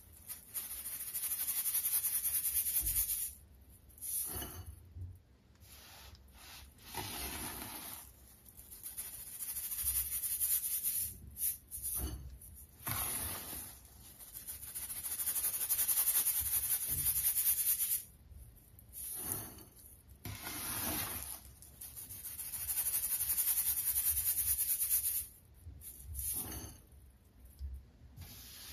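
Fine-mesh metal sieve shaken by hand, sifting crushed baking soda through the mesh onto a pile: a hissing rasp of powder rubbing against the mesh. It comes in several spells of a few seconds each, with short pauses between.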